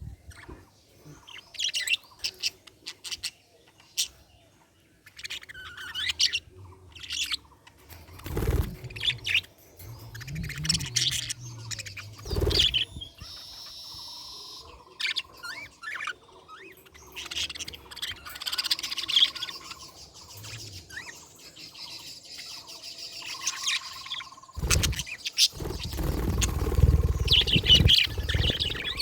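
Budgerigars chirping and warbling in quick, busy runs of high notes. A few sharp knocks break in, and near the end there is a louder stretch of low rumbling.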